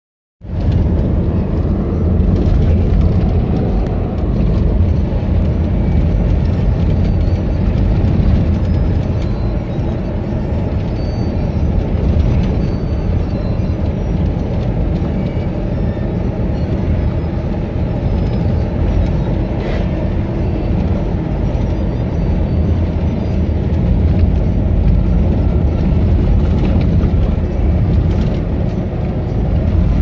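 Steady low rumble of engine and tyre noise from a vehicle driving along a rough, patched country road, with a few faint knocks.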